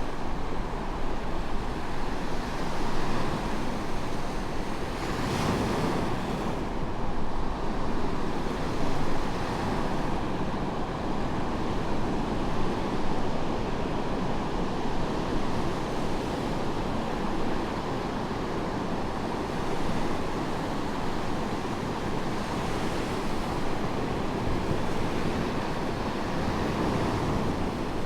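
Medium waves breaking and washing onto a sandy beach, a continuous surf with one brighter crash about five seconds in, and some wind on the microphone.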